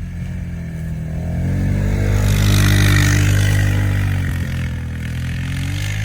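Vehicle engine accelerating hard, its pitch and loudness climbing for about two seconds, then easing off, with a rushing hiss at the loudest point.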